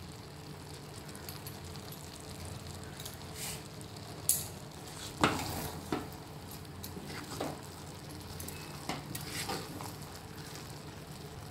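Wooden spatula stirring and turning cooked pulao rice in a pot, with a few short scrapes and knocks against the pot over a low steady background.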